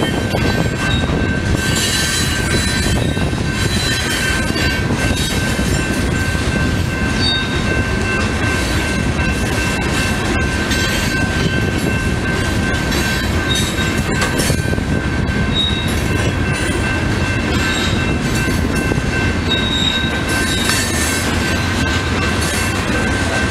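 Loaded rock hopper cars of a freight train rolling past, a steady rumble of wheels on rail. Over it runs a continuous thin, high wheel squeal.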